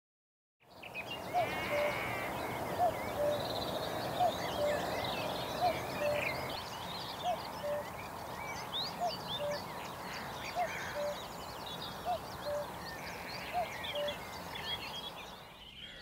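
Common cuckoo calling its two-note falling "cuck-oo" about nine times, evenly spaced roughly a second and a half apart, starting just under a second in. Other songbirds chatter higher up in the background.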